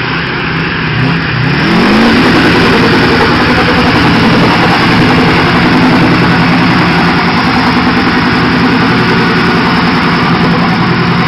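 Hummer H1's V8 engine revving up over the first two seconds and then held at high revs, a steady loud drone, as the truck works through deep mud under heavy load.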